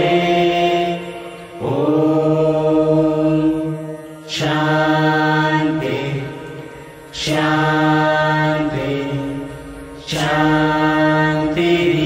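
Group of voices chanting a Hindu morning prayer in unison, with long held notes in phrases that start about every three seconds.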